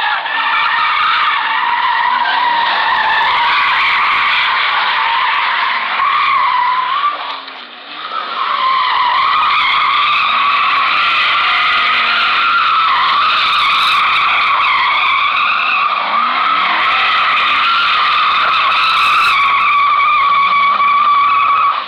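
A car doing donuts, its tyres squealing in one long continuous squeal while the engine revs up and down underneath. The squeal fades briefly about seven seconds in, then picks up again.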